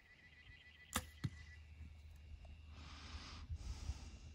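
Compound bow shot: a sharp snap of the string on release about a second in, followed a quarter second later by a second knock as the arrow strikes a feral goat.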